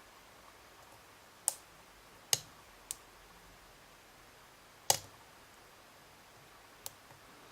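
Sharp, separate clicks from pins setting under a lock pick in a pin-tumbler challenge lock pinned with wafer drivers, five in all, spread unevenly over several seconds. Each click is a wafer driver stepping down a notch at the shear line; such pins take several clicks each to set.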